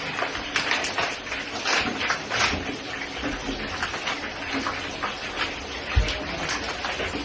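Sausages and fish sizzling and crackling in hot frying oil, with dense irregular pops, and a dull knock about six seconds in.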